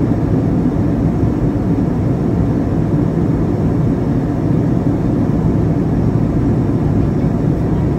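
Steady low cabin noise of a jet airliner in flight, the drone of engines and rushing air heard from inside the passenger cabin.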